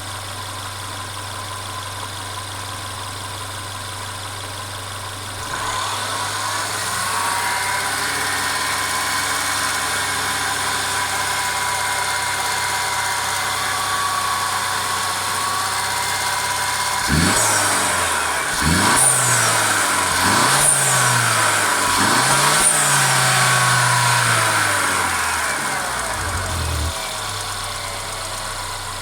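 Mercedes-Benz CLA 250's turbocharged 2.0-litre four-cylinder engine idling, then held at raised revs for about ten seconds, then blipped four times in quick rises and falls before settling back to idle near the end. The owner reports a constant rattle from this engine.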